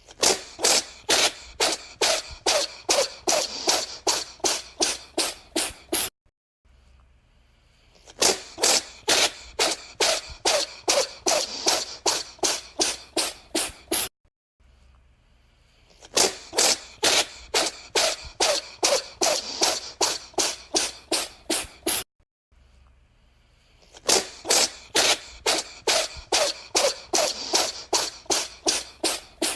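A cat sneezing over and over, about three quick sneezes a second. The sneezes come in four runs of about six seconds each, one starting about every eight seconds, with short quiet gaps between them.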